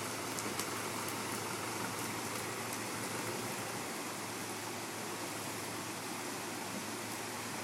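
Muddy creek water rushing steadily through a breach torn in a beaver dam, a continuous splashing rush of draining water.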